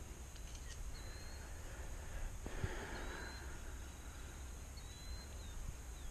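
Quiet outdoor ambience: a steady low rumble with a few faint, short, high chirps from a small bird, heard several times.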